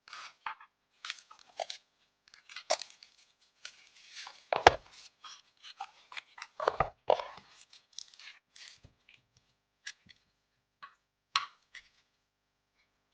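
Hands handling PC parts and packaging: an irregular run of crinkles, rustles and small clicks, with one sharp knock about four and a half seconds in.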